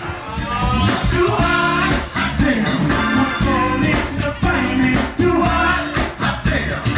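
Music with singing and drums.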